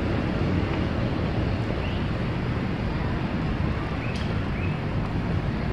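Steady low outdoor rumble of wind buffeting the microphone over city traffic, with a few faint short high chirps about two and four seconds in.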